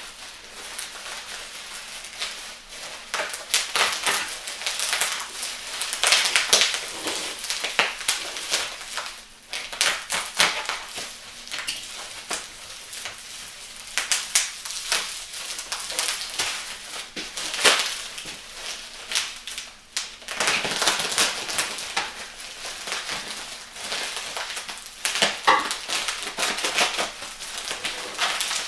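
Bubble wrap being cut with a knife and pulled off a set of exhaust headers: irregular crinkling and crackling of the plastic throughout.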